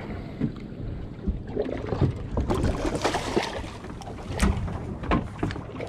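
Wind buffeting the microphone over water lapping and splashing against the side of a small boat, with a few sharp knocks between about two and five seconds in.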